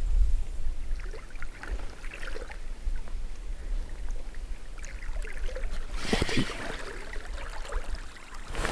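River water lapping and trickling, with a short splash about six seconds in and another just before the end: a fish striking at the lure at the surface.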